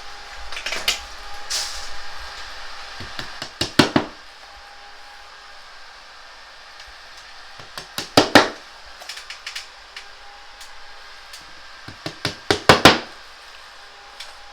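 Hammer tapping board anchors into gypsum plasterboard: three runs of several sharp knocks, about four seconds apart, each run ending in its loudest blows.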